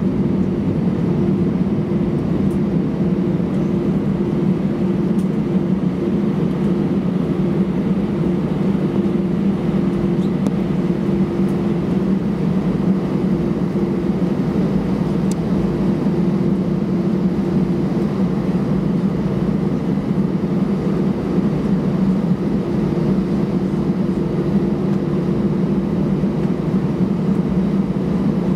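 Cabin noise of an Airbus A320-214 taxiing: its CFM56-5B engines at idle, a steady rumble with a constant two-note hum.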